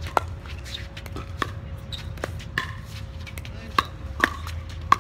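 Pickleball rally: a series of sharp, hollow pops, irregularly spaced, as paddles strike the plastic ball and it bounces, over a steady low hum.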